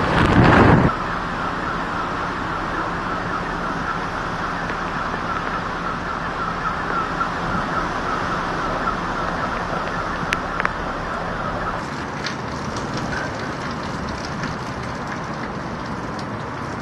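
Hurricane wind and driving rain rushing steadily, with a loud gust in the first second. A faint pulsing alarm tone sounds through the middle of it.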